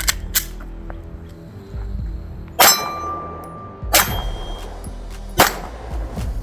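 Walther PDP pistol fired five times at an unhurried pace, with steel targets ringing out with a metallic clang after some of the hits.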